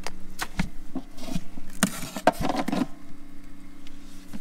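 Plastic parts of an Arctic Air evaporative cooler being handled: a run of light clicks and knocks as its water bag and filter are lifted out, with a denser rustle about two seconds in, over a steady low hum.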